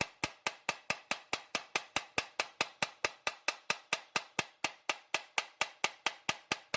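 Rapid, evenly paced hammer taps on metal, about five a second, each strike ringing briefly.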